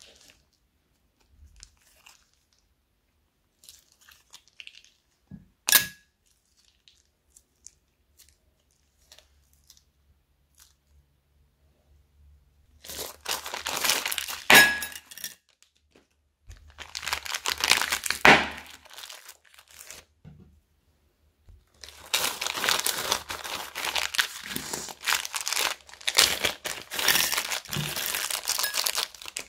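Small plastic zip-lock bags crinkling as they are handled and emptied, with beads tipped out of them into a glass bowl of slime glue. Mostly quiet at first apart from one sharp click; the crinkling comes in three long stretches from about halfway through.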